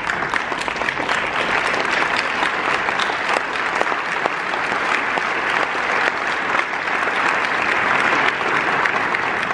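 A large audience applauding, many hands clapping together at a steady level.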